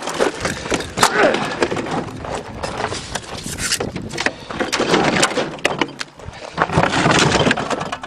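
Wrecked bar fridge being handled: a dense run of knocks, rattles and cracking from its broken panels and debris, louder about a second in and again near the end.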